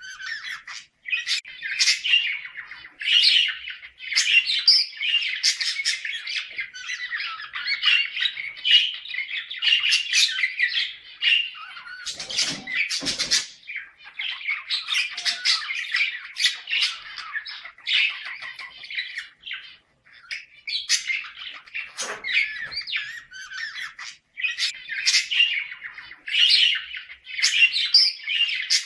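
Budgerigars chattering nonstop with squawks and chirps, with a few short pauses and some harsher calls about twelve seconds in. It is the breeding-season mating chatter of budgies.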